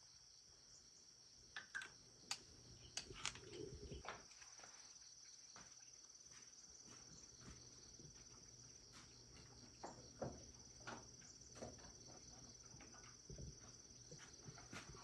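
Faint, steady high-pitched insect chirring, like crickets, with scattered light clicks and knocks.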